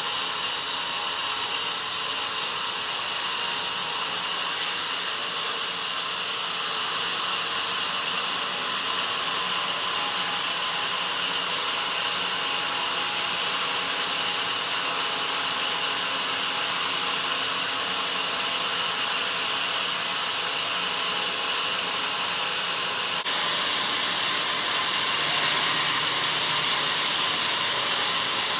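Sawmill band saw cutting through a log, a steady hissing saw noise that grows louder and sharper near the end.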